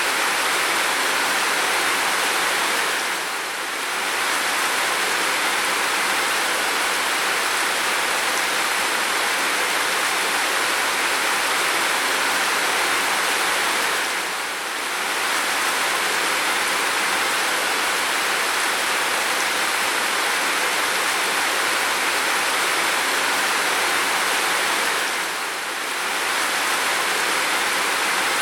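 Steady heavy rain, an even hiss, dipping briefly three times about eleven seconds apart.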